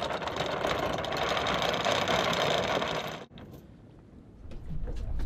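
Steady mechanical rattling on a boat, cutting off suddenly about three seconds in, followed by quieter low noise that builds again near the end.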